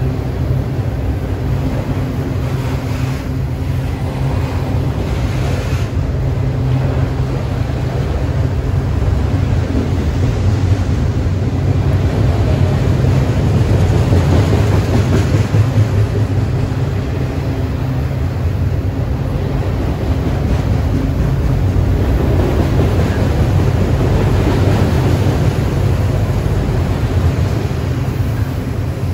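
Steady rumble of a long string of autorack freight cars rolling past on steel wheels and rail.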